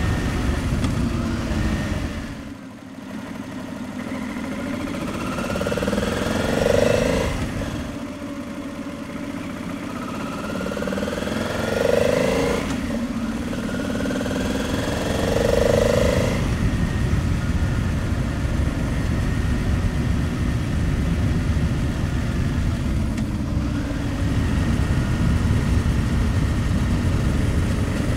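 Honda Transalp 700's V-twin engine running on the move, with a steady rush of wind on the microphone. Three times its pitch climbs as the bike accelerates, then drops suddenly at a gear change. Early on the engine briefly goes quieter.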